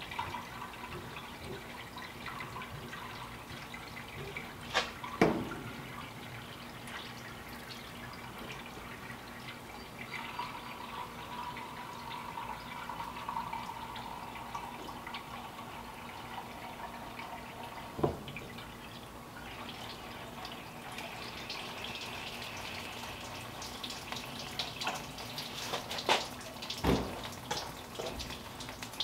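Water and coolant pouring and glugging from a plastic camping water jug into a 1934 Ford's radiator filler neck as the cooling system is filled. A few sharp knocks are heard, once about five seconds in and once just past halfway, then a cluster of clunks near the end.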